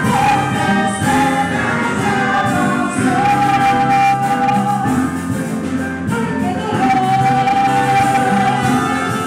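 Live ensemble music: a woman sings lead, holding two long notes, the second starting about two-thirds of the way in, with the band and backing voices under her.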